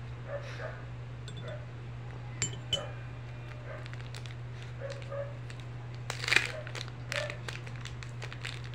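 Small plastic packet crinkling as it is handled and torn open, loudest a little past the middle, with two sharp clinks about two and a half seconds in. A steady electric-fan hum runs underneath.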